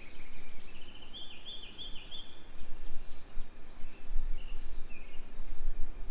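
Bird calls outdoors: a quick run of short, high, repeated notes over the first two seconds or so, then a few scattered single notes, over a steady low rumble that grows louder about four seconds in.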